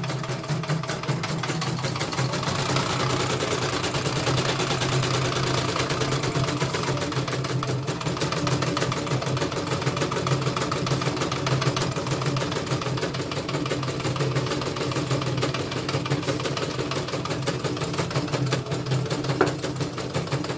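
CNY portable embroidery machine stitching steadily at working speed: a fast, even clatter of needle strokes over a steady motor hum, on a test run after cleaning and servicing.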